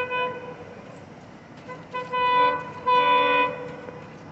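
Indian Railways locomotive horn: a blast that ends just after the start, then a short toot and two louder half-second blasts in quick succession, as two trains cross at a station.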